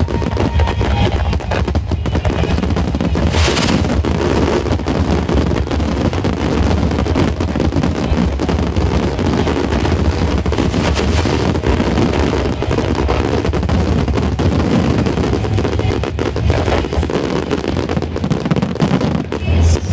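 Fireworks finale barrage: many aerial shells bursting and crackling in rapid, overlapping succession with no gaps, and music playing under it.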